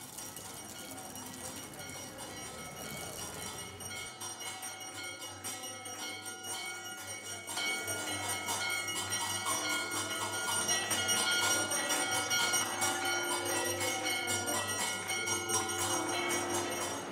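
Hindu temple bells ringing continuously during an aarti, many metallic strikes blending into a dense ringing shimmer. It grows louder about seven or eight seconds in.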